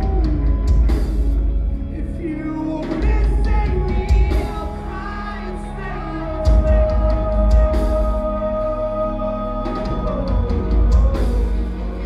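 Post-hardcore band playing live, heard from within the crowd: distorted electric guitars, bass and drums with a sung lead vocal, and long held notes in the middle.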